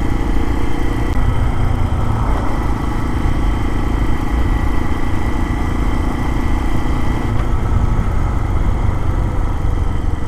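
Lifan KPX250 dual-sport motorcycle's 250 cc single-cylinder four-stroke engine running steadily under way. Its note shifts slightly about a second in and again near the end.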